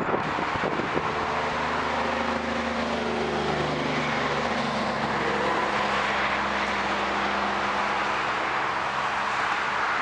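A motor vehicle's engine hums steadily over a constant hiss of wind and road noise, with a couple of knocks right at the start.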